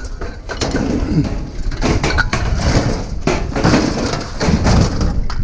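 An old Weber grill's metal parts clattering and scraping as it is handled, with many irregular knocks.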